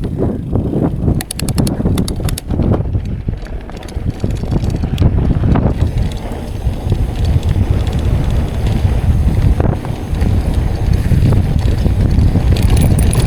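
Mountain bike rolling along a dirt trail: tyre and trail rumble with wind on the microphone, getting louder about halfway through.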